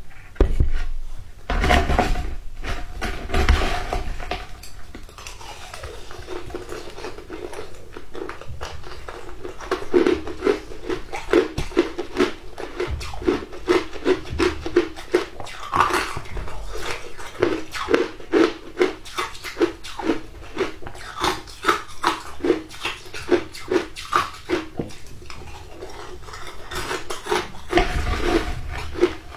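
Shaved ice being bitten and chewed close to the microphone: dense crisp crunching, settling into a steady chewing rhythm of about two crunches a second.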